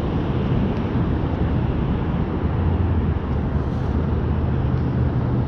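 Steady highway traffic noise: a dense hiss of passing vehicles with a low hum underneath.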